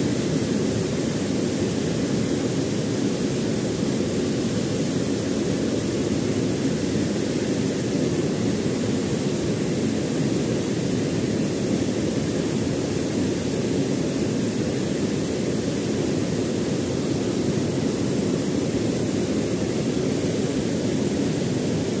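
Waterfall pouring into its pool: a steady, unbroken rush of falling and churning water, heaviest in its low range.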